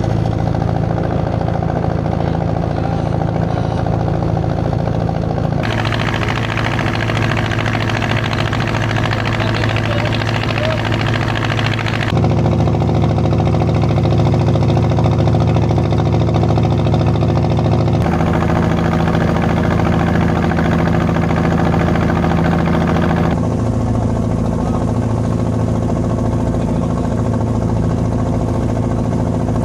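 Boat engine running steadily with a low, even hum. The sound changes abruptly about every five or six seconds.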